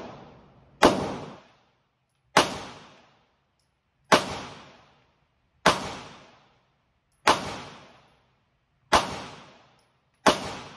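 Handgun fired at a slow, steady pace: seven shots about a second and a half apart. Each shot rings off in the reverberation of an indoor shooting range.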